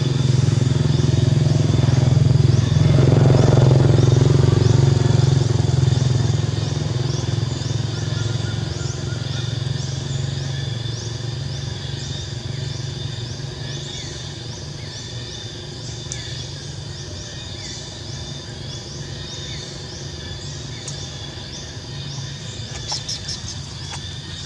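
A steady low engine hum, loudest a few seconds in and then slowly fading away, with high chirps repeating regularly throughout.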